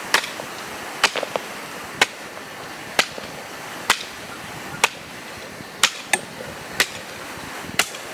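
A hand tool chopping with sharp, regular strokes, about one a second.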